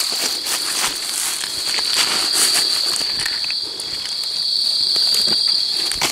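Night insects chirring in one steady, high, continuous note. Scattered brief rustles and crackles of dry leaf litter sound over it.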